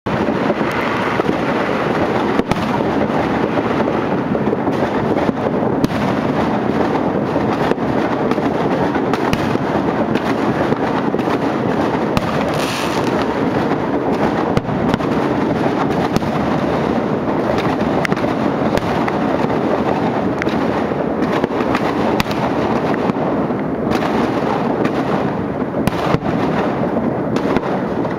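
Dense, continuous barrage of fireworks and firecrackers, countless bangs and cracks overlapping into one steady din, with a short high hiss about halfway through.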